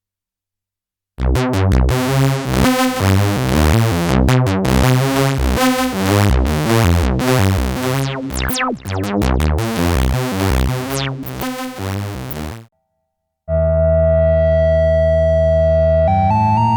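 Roland SE-02 monophonic analog synthesizer playing a demo sound. About a second in it starts a fast sequenced pattern of short, bright notes that runs for about eleven seconds, and after a brief pause it holds a steady sustained tone that steps up in pitch near the end.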